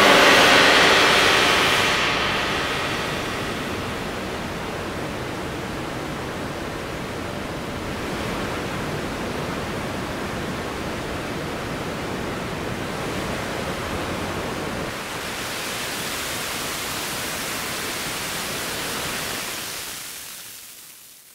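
Electronic ambient soundscape of steady rushing noise, like static or a distant waterfall, loudest in the first couple of seconds and fading out near the end.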